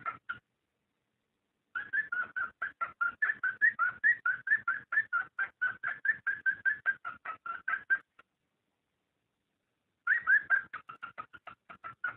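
Cockatiel mating call: rapid runs of short chirps, about five a second. Three stretches are broken by silent gaps about half a second in and again around eight seconds in.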